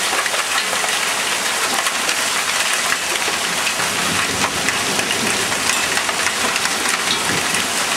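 Heavy hail mixed with rain pelting down on leaves and flat shed roofs: a dense, steady hiss full of tiny sharp ticks from the stones striking.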